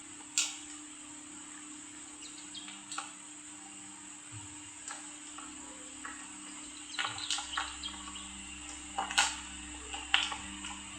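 Short, sharp bird chirps at irregular intervals, more of them in the second half, over a steady hiss and a low hum.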